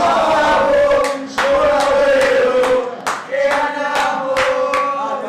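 A group of fans chanting a football song together in unison, loud and sustained. From about a second in they clap hands in rhythm, about two to three claps a second.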